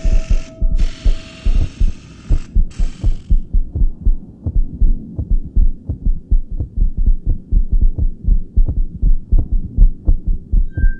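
Sound score of a dance piece: a loud, low pulsing beat of about three pulses a second, with a high hiss that stops about three seconds in.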